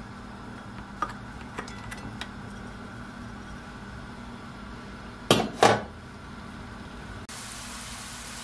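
Chopped onion being scraped out of a bowl into a non-stick pan with a spatula, a few light clicks of utensil on pan, then two loud knocks of cookware a little after five seconds in. From about seven seconds in, onion sizzling in hot oil.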